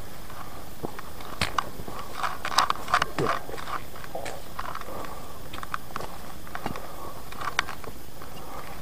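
Footsteps along a mossy forest trail, with irregular crackling and snapping from the undergrowth. The crackles are busiest about one and a half to three seconds in, with a few more later.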